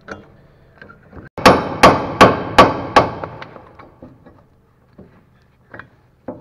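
Five hammer blows on the steel steering knuckle and lower ball joint of a van's front suspension, about 0.4 s apart, each ringing briefly; a couple of light metal knocks follow near the end. The blows knock the knuckle off the lower ball-joint stud.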